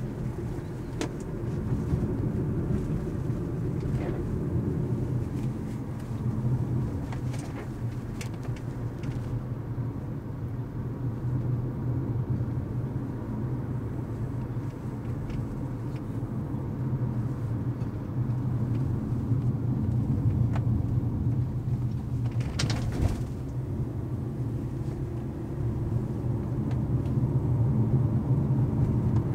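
Car engine and tyre noise heard from inside the cabin, a steady low hum as the car climbs a paved country road. Scattered faint ticks, and a short burst of noise about three-quarters of the way through.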